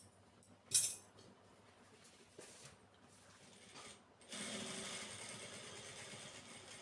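A sharp click and a few small knocks of handling, then a sewing machine starts running steadily about four seconds in.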